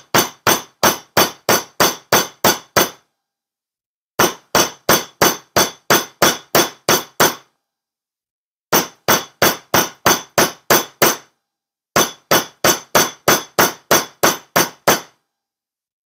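Chasing hammer striking the end of a copper wire on a steel bench block, flattening it into a paddle. Quick, even taps about four a second, in four runs of a few seconds each with short pauses between.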